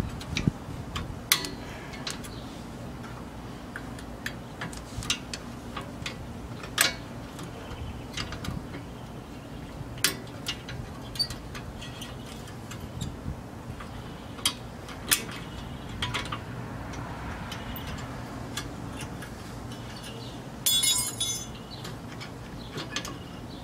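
Scattered metal clinks and taps of a screwdriver working against a Lexus IS300 rear brake caliper, prying out the brake pad retaining pin and its clip. A short, denser metallic rattle-scrape comes near the end.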